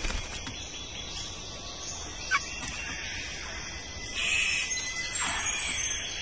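Rainforest birds calling over a steady high-pitched background drone: a sharp call a little over two seconds in, a harsh burst around four seconds, and a call falling in pitch near the end.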